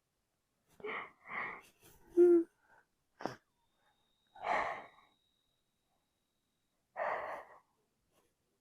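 A frightened person breathing hard in separate gasps and sighs, with a short voiced whimper about two seconds in and a sharp click a second later.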